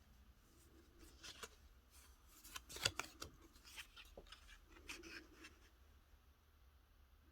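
Faint rustling and light tapping of paper and craft supplies being handled, with scattered small clicks, the sharpest a little before three seconds in.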